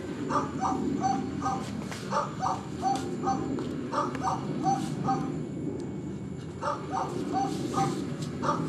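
An animal giving short, high calls in quick repeated runs, a few a second, with a brief pause about halfway through.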